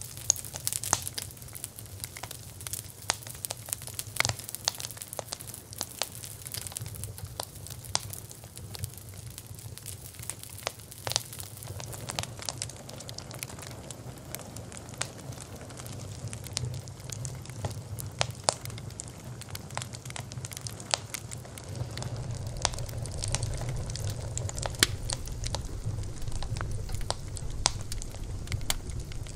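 Bonfire burning: irregular sharp crackles and snaps of burning wood over a low, steady rumble of flame. The rumble grows stronger in the second half.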